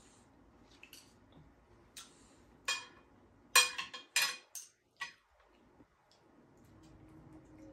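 Spoon and chopsticks clinking against a ceramic plate while eating: a quick run of sharp, ringing clinks from about two to five seconds in, the loudest about three and a half seconds in.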